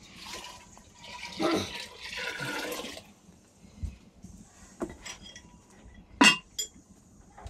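Water splashing and pouring into a cooking pot for about three seconds, then a few light clicks and a single sharp metallic clank of a kitchen utensil about six seconds in.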